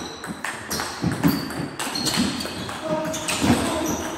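Table tennis rally: the ball clicking sharply off the rackets and the table in a quick back-and-forth, several hits a second.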